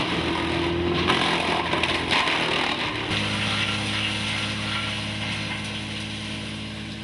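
Wood chipper running and chewing through branch wood: a dense grinding, crackling noise over a steady machine hum. About three seconds in it changes to a steadier hum with less crunching, slowly fading.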